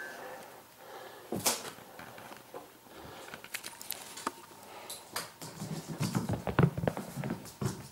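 Scattered light clicks and rustles with a sharper knock about a second and a half in, then an English Springer Spaniel puppy's paws pattering quickly across a hard floor as it runs, a dense run of soft thumps and clicks near the end.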